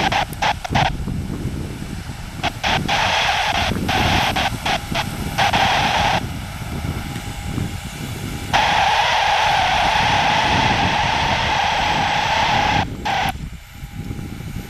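Boeing 737's CFM56 turbofan running at taxi power, a steady low rumble, overlaid by bands of hiss that cut in and out abruptly several times, the longest lasting about four seconds from roughly halfway through.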